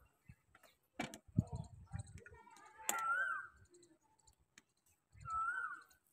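Light clicks and taps as a roti is pressed and turned by hand on an iron tawa. A short call with a rising-then-falling pitch sounds twice, about three seconds in and near the end.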